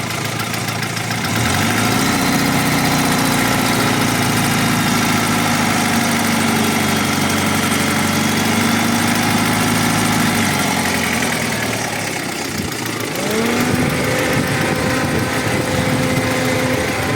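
Audi 80 B4's 2.0-litre four-cylinder petrol engine, warm, brought up from idle to about 2000 rpm and held for several seconds. It drops back toward idle, then is revved and held again near the end. The owner blames its tapping on the hydraulic valve lifters, since oil pressure reads normal.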